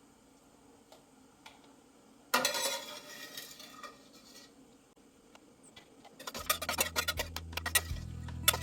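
Metal kitchen utensils clattering and clinking against a pot, a sudden burst about two seconds in that dies away over the next two seconds. Background music with a steady low note and plucked notes starts about six seconds in.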